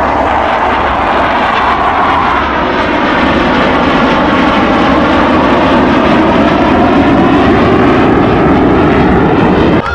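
Boeing EA-18G Growler's twin jet engines running loud during a fast pass. The dense rushing noise deepens over the seconds, then cuts off suddenly near the end.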